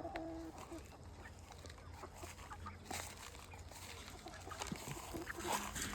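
A flock of hens clucking, with short calls scattered through.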